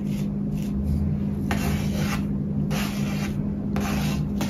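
Spatula spreading a thin crumb coat of whipped cream over a cake: soft repeated scraping strokes, about one a second and clearer after the first second and a half, over a steady low hum.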